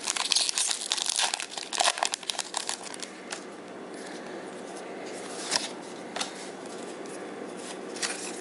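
Foil wrapper of a Pokémon card booster pack crinkling and tearing as it is torn open, dense and loud for the first three seconds. After that come a few faint, short rustles.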